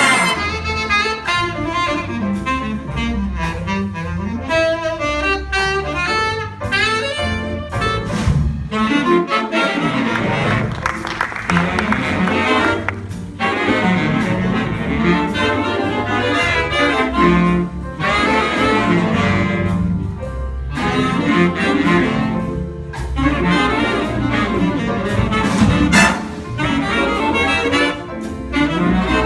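Jazz band playing a tune, with saxophones and brass carrying the lines over a bass.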